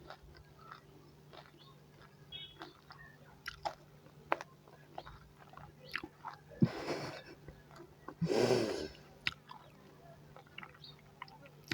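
Close-up chewing and mouth sounds of a person eating, with many small wet clicks. Two longer breathy sounds come at about seven and eight and a half seconds in, over a faint steady hum.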